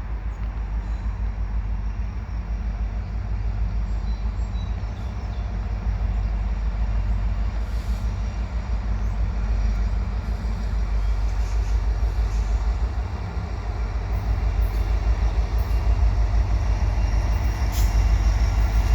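Diesel freight locomotives (a CN SD70M-2 leading C44-9W units) running as the train approaches: a steady, low pulsing engine rumble that grows gradually louder.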